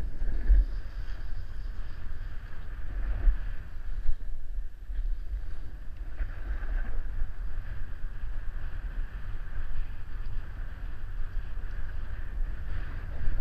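Wind buffeting the microphone of a GoPro Hero 3 Black as it moves downhill at speed, a low, gusty rumble, with the steady hiss and scrape of a snowboard sliding over groomed snow.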